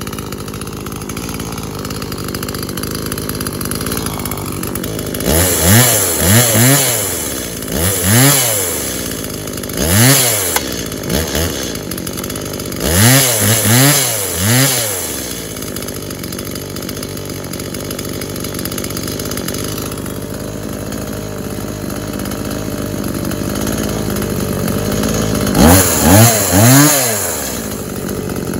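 Stihl MS170 two-stroke chainsaw running on the bench after its damaged piston and cylinder were replaced. It idles steadily between sharp blips of the throttle, which come in clusters of two to four and sweep quickly up and back down; the last cluster, near the end, is the loudest. It starts, runs and revs really well.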